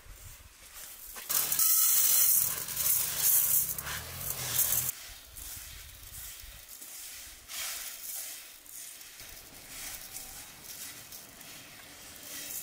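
Dry rice grains pouring from a metal tray into a bowl: a hissing rush of falling grains, loudest for a few seconds about a second in, then thinner trickles later.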